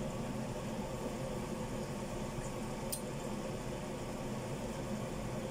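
A frying pan of tongkol fish in tomato-and-chili sauce simmering over a steady low hum, with a single light click of the spatula about three seconds in.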